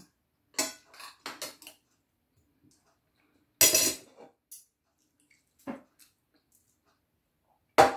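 Metal fork and spoon clinking and scraping on a ceramic dinner plate: a few light taps in the first two seconds, then one louder clink a little over three and a half seconds in, and a single tap near six seconds.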